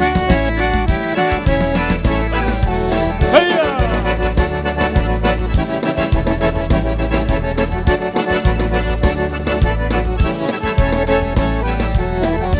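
Accordion (gaita) playing an instrumental break in a gaúcho folk song, over a steady bass beat.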